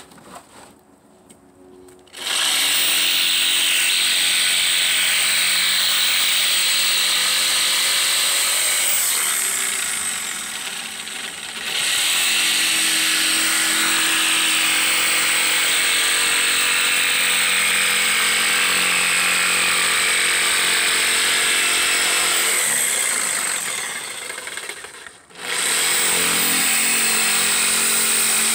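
Corded Ridgid jigsaw cutting plywood, its blade running steadily through the board. It starts about two seconds in, slows briefly about ten seconds in, then winds down and stops about 25 seconds in before starting up again near the end.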